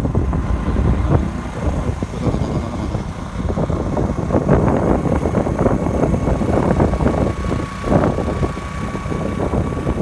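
Engine and road noise of a vehicle on the move, a steady rough rumble, with wind buffeting the microphone.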